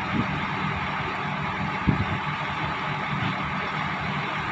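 Heavy diesel engine idling steadily, with a single short knock about two seconds in.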